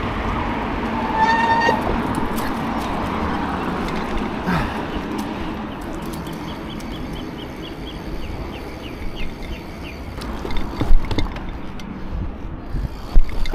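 Wind on the microphone and tyre and road noise from a Redline BMX bike being ridden along a street, with a few sharp knocks from the bike near the end, the loudest shortly before it ends. A short high chirp sounds about a second in, and a run of faint rapid ticks in the middle.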